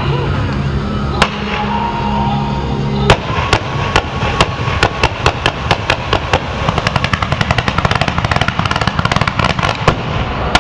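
Fireworks finale. Music with a steady deep bass plays for the first three seconds. Then single sharp bangs come faster and faster, building from about six seconds in into a rapid run of many reports a second, and end in one loud bang.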